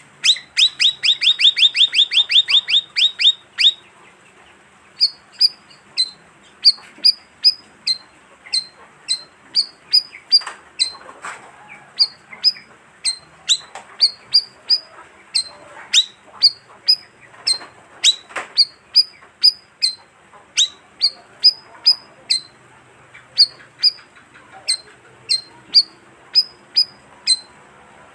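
Calls of the bayeman bird, used as a bird-trapping lure: a fast run of sharp notes at the start, then short high chirps repeated about every half second.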